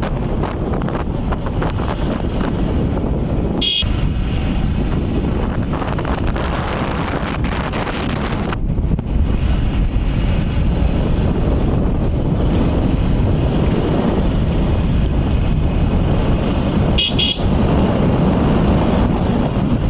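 Motorcycle ride with steady wind rush on the microphone over the running engine and road noise. A short horn beep sounds about four seconds in and another near the end.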